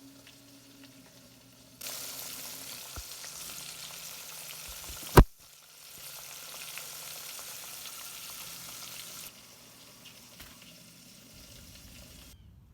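Floured catfish nuggets frying in hot grease: a steady sizzle that starts about two seconds in and cuts off abruptly about nine seconds in. One sharp, loud click near the middle.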